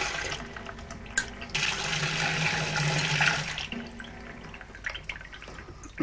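Water gushing through a washing machine's solenoid fill valve, stopping and starting as the pressure switch is worked. The flow dies away just after the start, with a click about a second in, then gushes again with a steady hum for about two seconds before cutting off.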